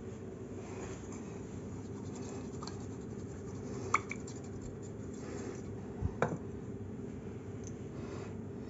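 A few light clinks of kitchen utensils over a steady low hum: one about four seconds in and two close together around six seconds in.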